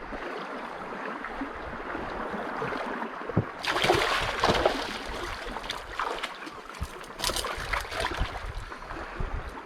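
Shallow seawater sloshing and trickling over rocks, with a run of louder splashes starting about three and a half seconds in and a few shorter splashes after.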